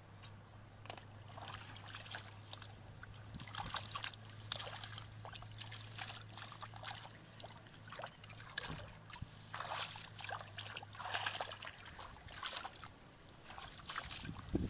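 Shallow muddy water splashing and sloshing in short, irregular bursts as hands grope through it for fish. A steady low hum runs underneath and stops near the end.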